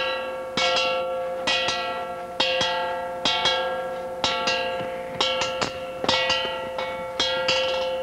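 Metal percussion instrument struck in a steady beat, roughly once a second and often as a quick double stroke, each stroke ringing on into the next.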